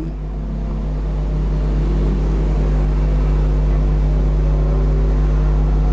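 Steady low electrical hum, swelling slightly over the first two seconds and then holding level.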